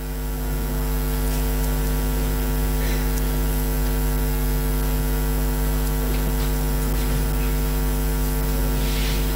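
Steady electrical mains hum in the recording, a low drone with a stack of buzzy overtones that holds unchanged throughout: interference picked up by the audio chain.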